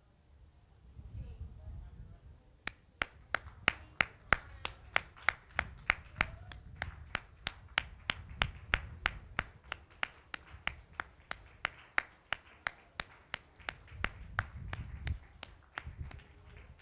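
Steady rhythmic hand clapping, about three sharp claps a second, starting a few seconds in and stopping shortly before the end.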